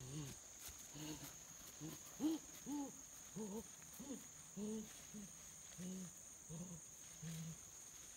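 A person making wordless hooting grunts: a long run of short, low calls, each rising and falling in pitch, coming about once every half to three-quarters of a second.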